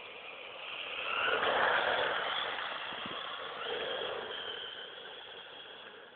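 Brushless-powered Reely Pyro electric RC buggy driving on asphalt: a high motor whine with tyre noise. It swells loud about a second in and again around four seconds, then fades as the buggy drives away.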